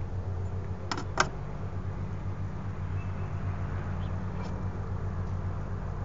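Two sharp taps about a second in, the second louder, from a bird perched right above the camera, over a steady low hum. A few faint short bird chirps follow.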